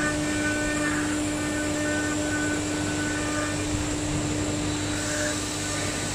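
CNC router spindle running at a steady speed as its bit cuts a pattern into a board, a constant hum under a hiss of cutting noise that swells and fades as the tool moves.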